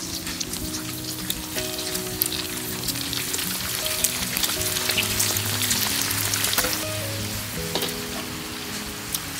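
Shrimp crackers deep-frying in hot oil in a wok: a steady sizzle with many small crackling pops, busiest around the middle. Soft background music plays underneath.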